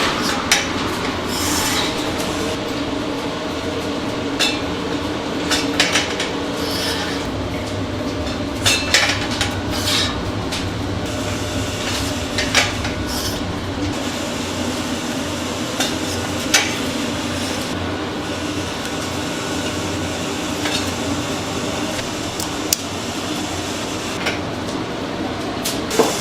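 Commercial kitchen sounds: a steady machine hum with scattered metallic clinks and knocks, like tongs and trays being handled.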